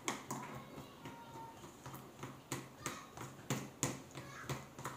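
A string of sharp, irregular clicks and taps, roughly two a second, over a faint low hum.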